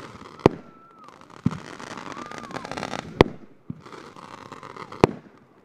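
Consumer aerial fireworks going off: three sharp bangs a few seconds apart, with softer thumps and a hissing crackle of sparks in between.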